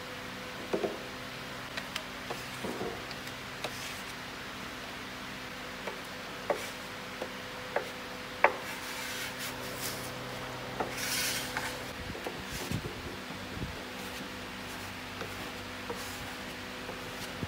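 A brush scraping and rubbing across plywood as a black coating is spread on a speaker cabinet, with scattered light taps of wood and tools and a longer scraping stretch about eleven seconds in. A steady low hum runs underneath.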